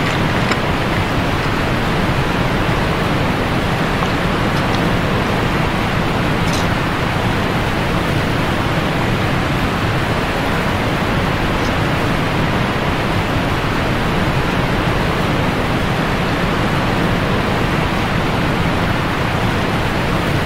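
Waterfall close by: a steady rush of falling water and spray.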